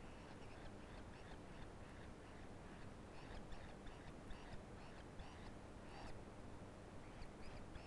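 Faint, short animal calls repeating about once or twice a second.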